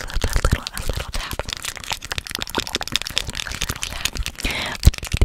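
Fast, irregular clicks, taps and crackles right at the microphone: close-miked ASMR trigger sounds from hands working around the mic. A louder knock comes near the end.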